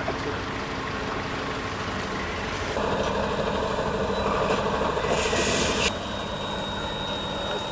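Heavy MAN truck's diesel engine running as it pulls a multi-axle low-loader, growing louder about three seconds in, with a short hiss a little after five seconds.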